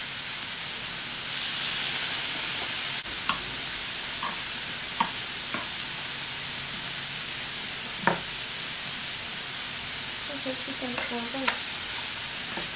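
Lobster, shrimp and scallops sizzling on the grill plate of an electric hot pot and grill, a steady hiss of searing. Five or six light clicks of metal tongs against the plate as food is turned, and a brief murmur of voice near the end.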